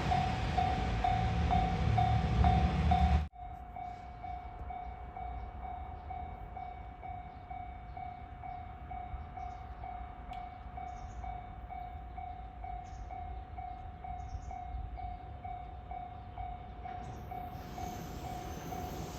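Level crossing alarm ringing with an even, repeating tone. A train passes loudly over the crossing at first, and its noise stops abruptly about three seconds in. The alarm goes on alone, and near the end the faint noise of another approaching train begins to build.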